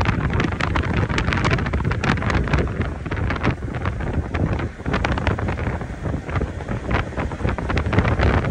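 Wind buffeting a phone's microphone held at the window of a moving car, over the car's road and tyre noise.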